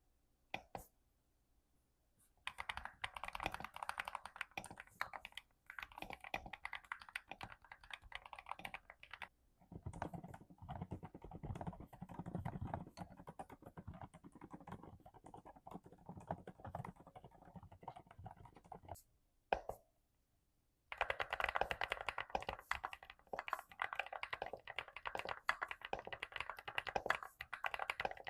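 Typing on computer keyboards in several separate stretches with short pauses between them. The typing from about ten to nineteen seconds in sounds deeper than the brighter typing before and after it, as if on a different keyboard.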